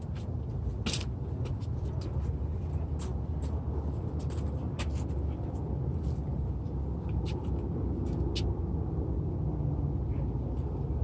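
A steady low engine rumble, with scattered light clicks and taps.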